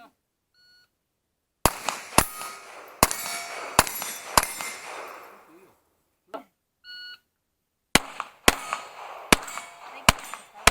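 A shot timer beeps faintly, then five pistol shots in quick succession, each followed by steel plates ringing. A louder timer beep comes about halfway through, then another string of five shots with ringing steel.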